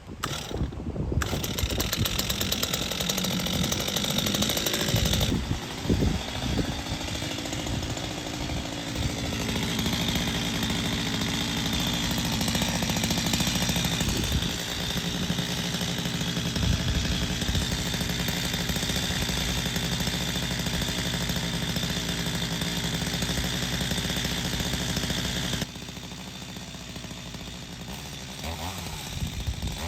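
Stihl MS250 two-stroke chainsaw running at full throttle, cutting into a small Japanese cedar trunk. About 26 seconds in it drops to a quieter, lower running, then revs up again near the end.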